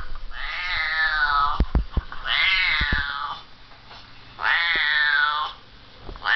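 Siamese cat meows played from a YouTube video through laptop speakers: three long, drawn-out meows about a second each, evenly spaced, with a fourth beginning at the end. A few soft knocks fall between the first two meows.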